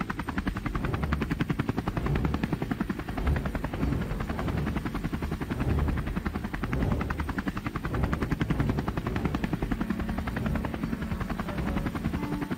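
Rapid, steady rotor chop over a low rumble, like a helicopter's.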